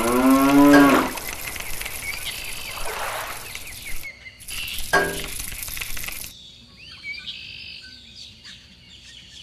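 A loud pitched sound sweeping upward in the first second, followed by hiss with a short pitched sound about five seconds in; after a sudden change near the end, faint high bird chirps.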